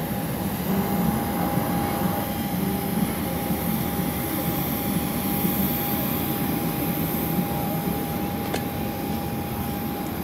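Steady drone of an aircraft engine running on the airfield, with a constant whine held at one pitch; a faint click comes about eight and a half seconds in.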